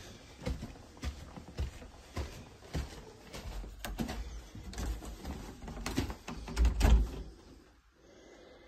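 Footsteps climbing plastic-sheeted stairs, roughly two steps a second, then louder knocks and thuds near the end as a wooden door is opened.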